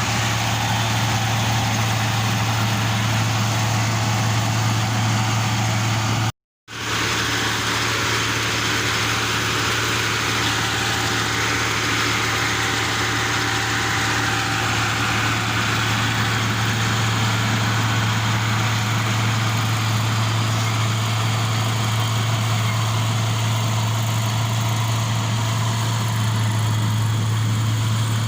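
Kubota rice combine harvester's engine running steadily with a constant low hum, cut off for about half a second roughly six seconds in.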